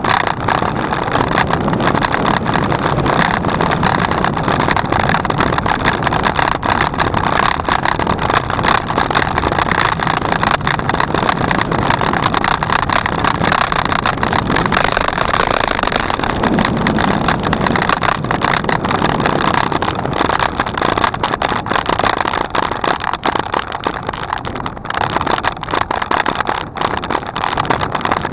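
Steady rushing wind and rolling noise picked up by a camera on a moving bicycle, dense and unbroken with constant small rattles and buffets.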